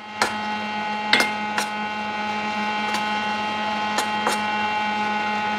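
Metal utensil clinking and scraping against a stainless steel saucepan several times while boiled noodles are stirred and tossed with oil, over a steady hum.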